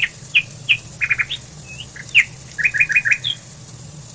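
A small bird chirping: many short, quick chirps, some single and some in fast runs of three or four, over a steady low hum.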